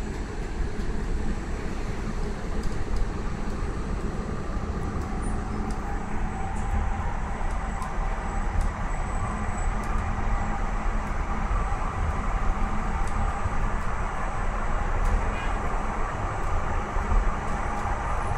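Steady rumble and hum of a tram running along its track, heard from inside the passenger car.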